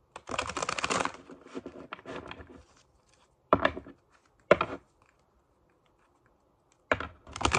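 Tarot deck being shuffled by hand: a rapid crackle of cards slipping past each other for a couple of seconds, then two short sharp card snaps about a second apart, and the shuffling starting again near the end.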